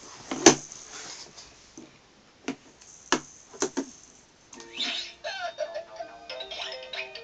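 A few sharp knocks of toys being handled, then, about halfway through, a battery-powered children's musical toy starts playing a simple electronic tune of stepped notes.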